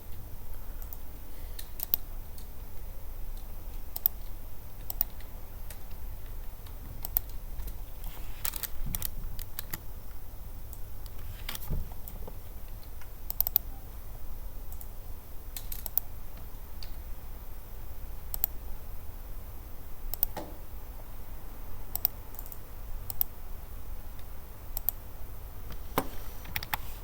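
Computer keyboard keystrokes and clicks, sparse and irregular, a few in quick clusters, over a steady low hum.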